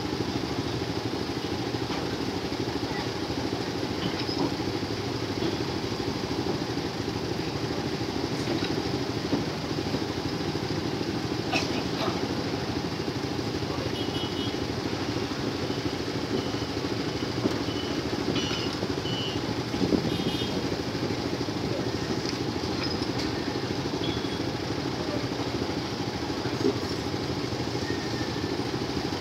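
Motorbike engines idling while a passenger train rolls slowly past, a steady mix of engine noise and rolling rumble. Scattered clicks and a few short high squeaks come through about halfway.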